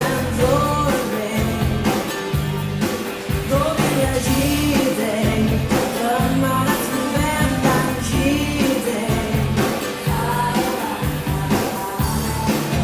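A pop-rock song with a lead vocal over bass and drums.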